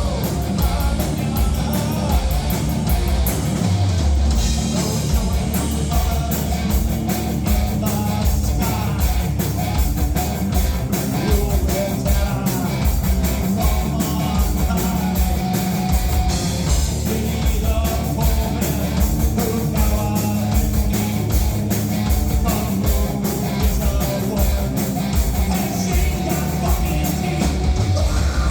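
Live heavy rock band playing loudly: distorted electric guitars, bass and very fast, pounding drums with constant cymbal hits.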